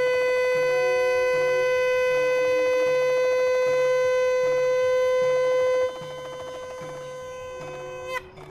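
Conch shell (shankh) blown in one long steady note. It drops to a softer level about six seconds in and breaks off with a short upward flick near the end, over a low beat about one and a half times a second.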